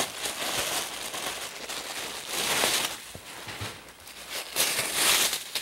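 Plastic packaging crinkling and rustling in irregular bursts, loudest about halfway through and again near the end.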